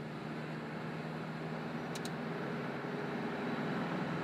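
Steady road and engine noise of a car, heard from inside as it moves in traffic, with a low hum and a light click about two seconds in.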